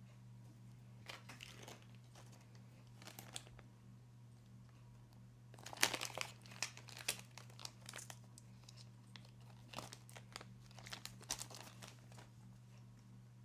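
Crinkling and rustling handling noise in irregular bursts, loudest about six seconds in and again near the end, over a steady low electrical hum.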